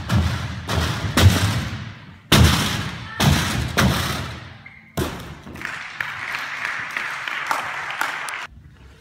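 A gymnast's feet thud on a sprung tumbling track and landing mats during tumbling runs, echoing in a large hall. About halfway through, a steady rushing noise takes over and cuts off suddenly near the end.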